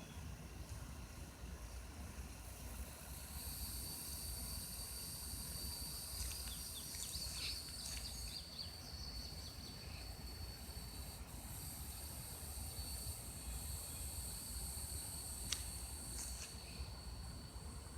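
A steady, high-pitched insect chorus of crickets or katydids sets in about three seconds in and carries on. A few short chirps come through in the middle, and there is one sharp click near the end, all over a low rumble.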